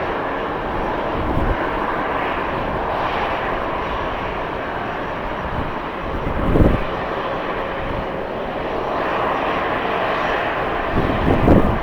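Airliner engines running with a steady rushing drone. Wind buffets the microphone with a low thump about six and a half seconds in and again near the end.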